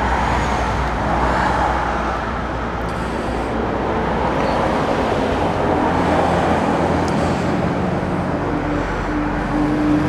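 Steady background rumble of road traffic, with a faint engine hum coming in over the second half.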